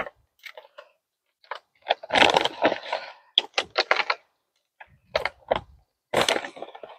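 Crinkling and crunching as a bag of compost starter is handled and emptied into a compost tumbler, in irregular bursts that are thickest about two to three seconds in.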